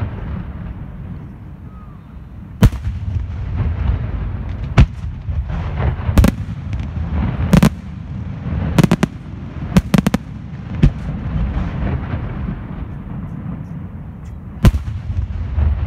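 Aerial firework shells from a Senatore Fireworks display bursting: about a dozen sharp bangs at irregular intervals, several in quick succession near the middle, over a continuous low rumble and crackle.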